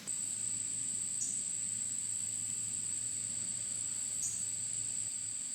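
Steady high-pitched drone of singing insects, a late-summer chorus, with two brief falling chirps, one about a second in and one near the end.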